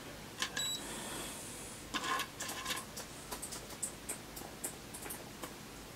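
Faint irregular clicks and scrapes of multimeter probe tips on the pads of a small circuit board as the capacitors are probed for shorts. A brief high beep sounds about half a second in.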